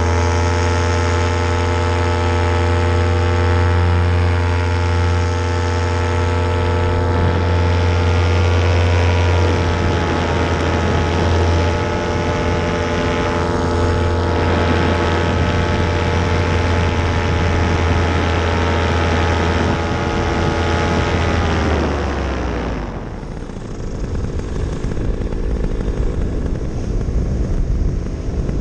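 Paramotor engine and propeller running steadily at high power, then throttled back about 22 seconds in, its pitch sliding down quickly. What follows is a rough rushing noise with no steady engine tone.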